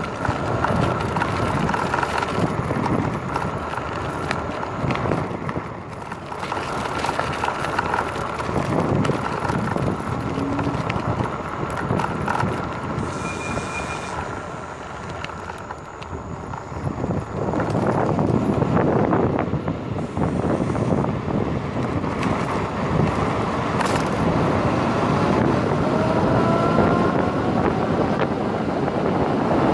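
Wind buffeting the microphone and tyre hum from a Nanrobot LS7+ electric scooter riding on asphalt on new fat street tyres. The sound eases off for a few seconds midway and grows louder again, and a faint whine rises in pitch near the end as the scooter speeds up.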